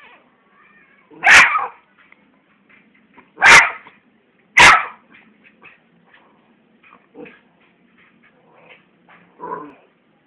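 Miniature schnauzer barking: three loud, sharp barks within the first five seconds, then fainter sounds and a softer one near the end.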